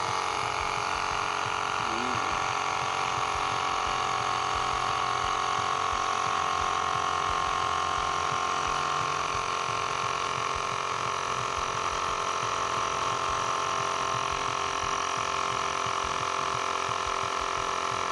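Xiaomi Mijia Air Pump 2 mini portable electric air compressor switching on abruptly and running steadily at an even pitch, inflating a soccer ball in ball mode toward a preset 9 psi.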